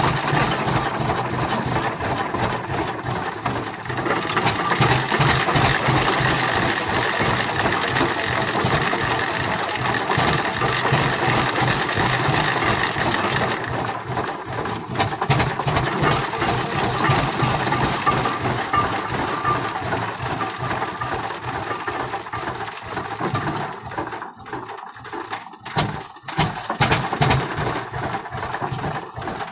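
1926 Rumely M winch tractor's engine running with a fast, even clatter. A high hiss over it drops away about halfway through, and the sound dips briefly a few times near the end.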